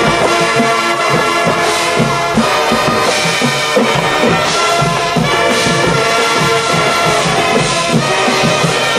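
High school marching band playing full out: brass section holding chords and lines over a steady drum beat.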